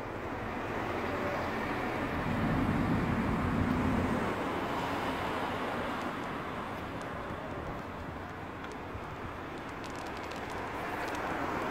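Outdoor traffic noise with a vehicle passing, loudest from about two to four seconds in.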